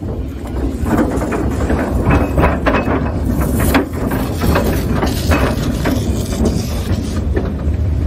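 Wooden fishing boat on its launching cradle sliding down the slipway rails: a steady, loud rumble with repeated knocking and clattering from the cradle on the rails.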